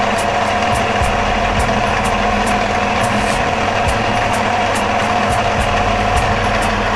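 Electric pasta maker's motor running steadily while its cutter rollers slice dough into noodles: an even mechanical hum with a faint regular ticking a few times a second.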